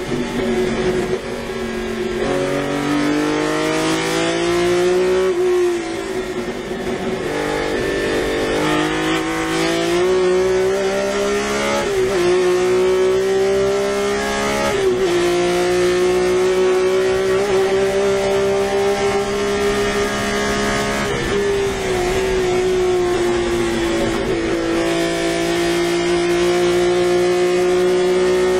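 BMW M1 race car's straight-six engine heard from inside the cockpit under hard acceleration. The pitch climbs and drops back at each of several upshifts in the first half, then holds high at speed, sags briefly and climbs again near the end.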